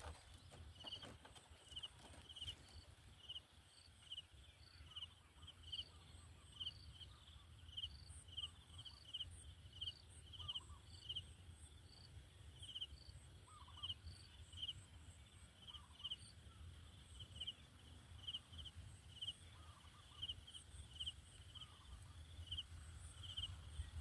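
Faint outdoor ambience: a short, high chirp repeated about twice a second throughout, with a few fainter lower notes and a low rumble underneath.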